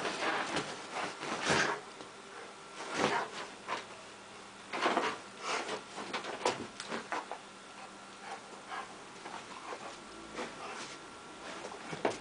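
A Rottweiler scrambling about on a bed, its paws and body scuffing and rustling the duvet and bedspread in irregular bursts, busiest in the first half and fainter later.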